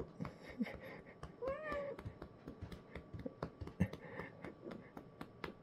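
A young orange-and-white cat gives one short meow about a second and a half in, amid scattered soft clicks and rustling.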